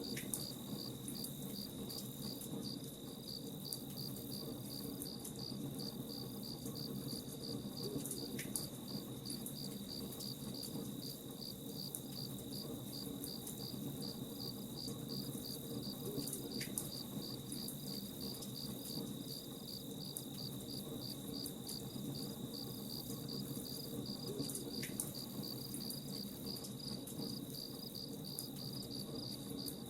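Campfire crackling with a steady low rumble, under crickets chirping in a fast, even pulse over a continuous high whine.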